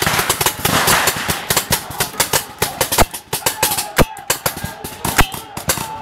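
Paintball markers firing: a rapid, dense string of pops at first, thinning to scattered single shots, with a few sharper, louder ones about three, four and five seconds in.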